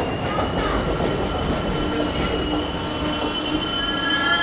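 Stainless-steel New York City subway train moving along an elevated station platform: steel wheels rumbling on the rails with several high, steady squealing tones, one more joining near the end as it grows slightly louder.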